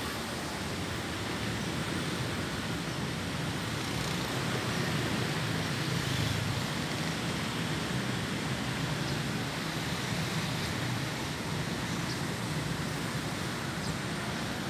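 Steady outdoor background noise: an even hiss with a low rumble that swells slightly in the middle.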